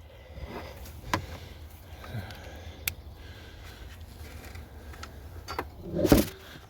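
Scattered metallic clicks and knocks of a 10 mm socket on an extension being worked onto the battery clamp nut, with a louder clatter near the end.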